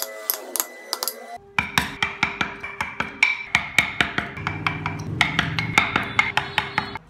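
Steel carving chisel being driven into wood with quick, sharp knocks, about four a second, after a short break just over a second in; the blows stop near the end.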